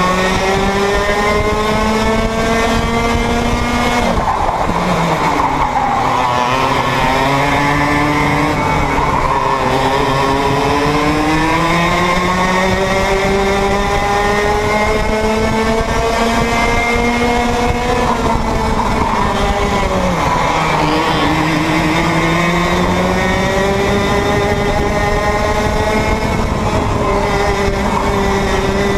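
Onboard sound of a two-stroke kart engine at racing speed. Its pitch climbs steadily along the straights and drops sharply under braking into corners, about four seconds in and again around eighteen seconds in.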